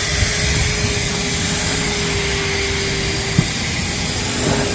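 Vacuum cleaner running steadily: a constant rushing hiss with a steady motor whine, and a single knock about three and a half seconds in.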